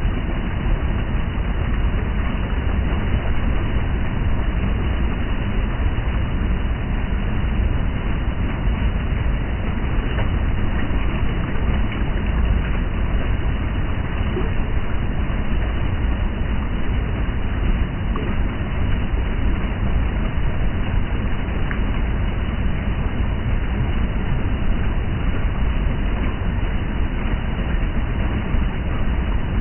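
River water running, a steady rushing noise that is strongest in the low rumble.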